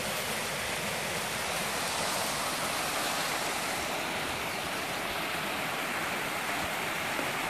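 Mountain stream rushing over a small cascade into a pool: a steady, even rush of water.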